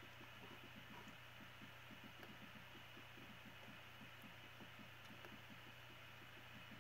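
Near silence: faint room tone with a steady low hum and a few faint computer-mouse clicks.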